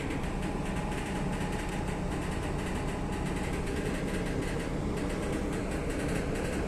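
Steady mechanical drone of a RORO ship's machinery as its folding stern ramp is hoisted up to close. The drone carries a few steady hum tones and runs without break or change.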